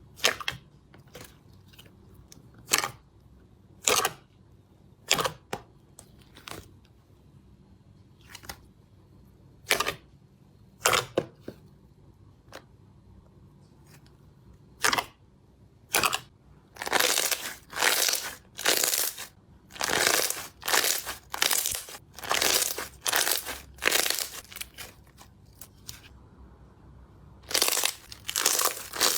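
Slime being pressed, poked and stretched by hand, making sharp sticky pops and crackling squishes. Scattered single pops come first, then a close run of longer crackling squishes about halfway through, and more again near the end.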